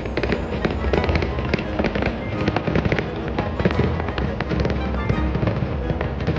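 Fireworks bursting in rapid strings of sharp pops and crackles, densest and loudest in the middle, over loud music from the show's soundtrack.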